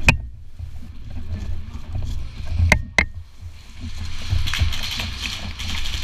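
Airsoft gun shots: one sharp crack at the very start, then two more about a third of a second apart near the middle, over a steady low rumble of movement and gear rubbing against the microphone.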